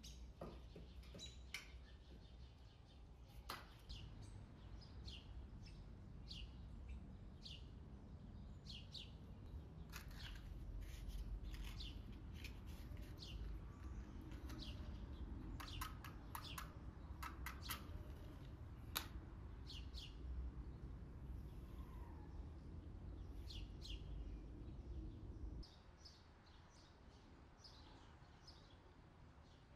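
Small birds chirping: many short, high calls scattered throughout, faint, over a low steady rumble that cuts off suddenly near the end.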